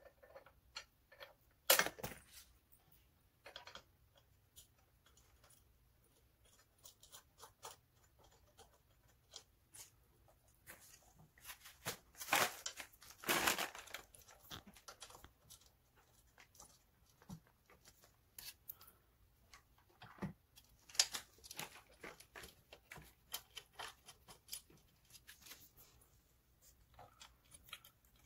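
Hand-assembly handling noises on a gaming chair's seat tilt mechanism: scattered small clicks and taps of plastic and metal parts as bolts are fitted and threaded by hand. A few louder handling noises come about two seconds in, around the middle, and again a few seconds later.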